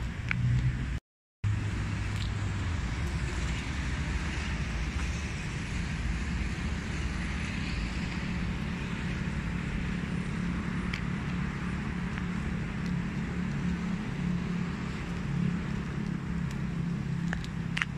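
Steady outdoor background noise of road traffic: a continuous low rumble and hiss, with a brief cut-out of all sound about a second in.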